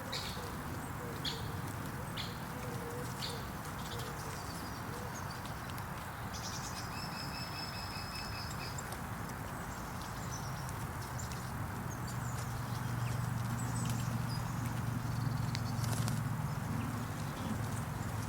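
Outdoor field ambience: a steady low hum that grows louder in the second half, with scattered faint high ticks and a thin, high, steady tone lasting about two seconds, starting around six seconds in.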